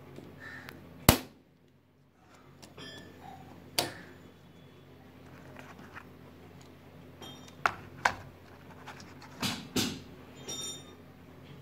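Scattered sharp clicks and knocks of hard plastic as Schneider miniature circuit breakers are handled and knocked against each other and their cardboard boxes, the loudest about a second in and a cluster near the end.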